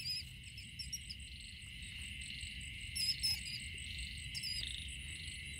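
Night chorus of crickets and other insects: a steady high trill, with short, higher chirps a few times.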